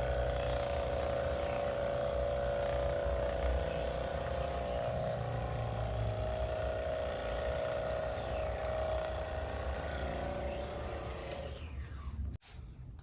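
Electric motor running with a steady hum, then cutting off suddenly near the end, followed by a few light clicks.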